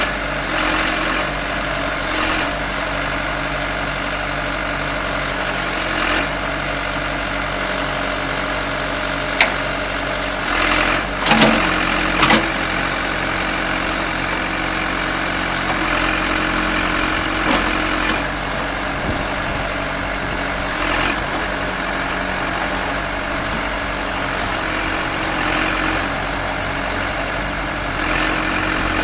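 1991 John Deere 310D Turbo backhoe's turbodiesel engine idling steadily, with a few short knocks about nine to twelve seconds in.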